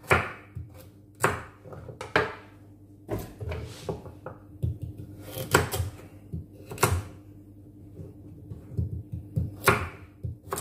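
Kitchen knife chopping carrots into chunks on a wooden cutting board: sharp, irregular knocks of the blade through the carrot onto the board, about one a second, with a pause of a couple of seconds late on.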